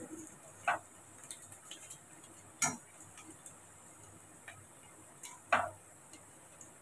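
A slotted skimmer spoon clicking against a stainless steel pan while fried pieces are lifted out of the oil: a few separate sharp taps, the loudest about two and a half seconds in and another near five and a half seconds.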